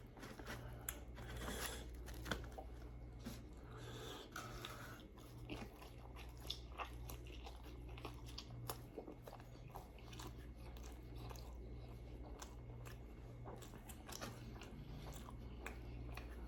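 Close-up chewing and biting of a person eating: faint irregular wet mouth clicks and crunches, over a steady low hum.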